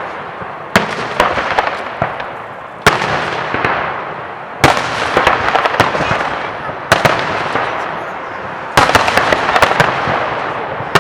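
Fireworks display: five loud aerial shell bursts about two seconds apart, each bang fading out over a second or two.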